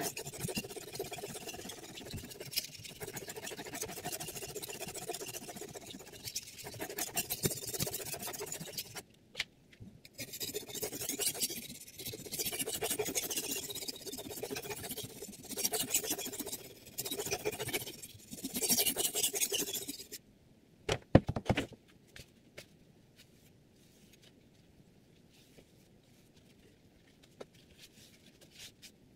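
Steel kitchen knife blade, held at a set angle by a clip-on guide, stroked back and forth on a water whetstone: repeated scraping strokes with short pauses. About twenty seconds in the scraping stops, a couple of knocks follow, then only faint rubbing as the stone is wiped with a cloth.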